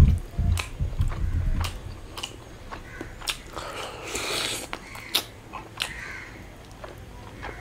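Close-miked eating: wet mouth clicks and smacks while chewing, with a longer sucking, hissy stretch about four seconds in as he bites into a curried chicken leg. A heavy low thump opens it, followed by a second or so of low rumbling.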